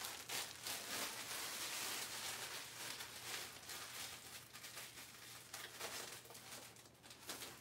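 Rustling and light scraping from things being handled at a kitchen counter, fading toward the end, over a steady low hum.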